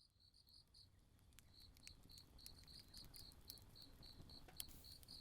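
Crickets chirping in a steady rhythm, about four high chirps a second, fading in from silence, with a few faint scattered clicks.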